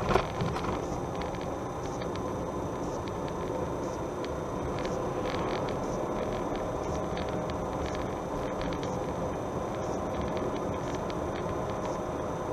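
A car driving at a steady speed: constant engine and tyre-on-road noise. There are a couple of sharp knocks right at the start and light clicks here and there.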